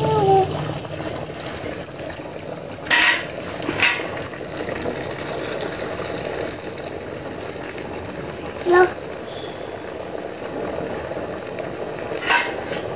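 Semolina-cake (suji pitha) batter deep-frying in hot oil in a steel kadai, a steady sizzle with a few brief louder bursts, the loudest about three seconds in and near the end.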